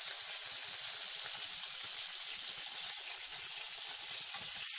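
Meat sate skewers frying in hot oil in a pan: a steady sizzling hiss.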